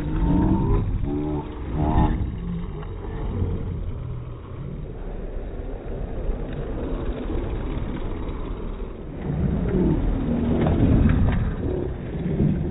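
Roadside sound slowed down about fourfold along with the slow-motion picture: deep, drawn-out spectators' voices in the first two seconds and again from about ten seconds in, over a low rumbling noise.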